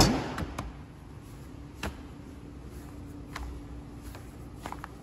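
Pizza dough slapped down onto a metal pizza peel right at the start, then hands pressing and stretching the dough with a few faint taps on the metal.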